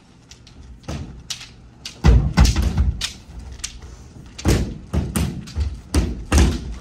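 Bamboo shinai striking armour and one another, with barefoot stamps on a wooden floor during kumdo sparring: irregular sharp cracks and heavy thuds, densest about two seconds in and again in the second half.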